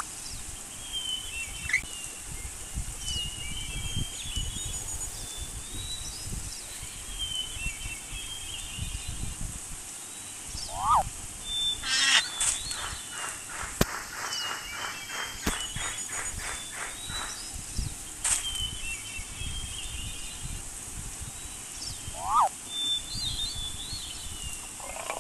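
Outdoor nature ambience with short bird chirps and calls over a low rumble, the same sequence of calls coming round again about every eleven seconds. Near the middle there is a brief run of quick, evenly spaced rattling clicks.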